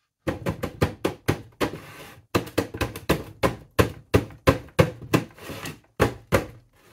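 Plastic planter pot repeatedly knocked, about three sharp knocks a second with a short pause about two seconds in, to settle the granular volcanic substrate and close hollow spaces around the ficus roots.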